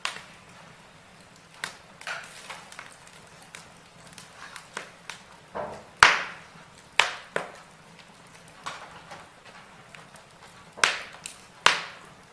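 Wood fire in a fireplace crackling, with irregular sharp pops from the burning logs; the loudest pops come about six and seven seconds in and twice near the end.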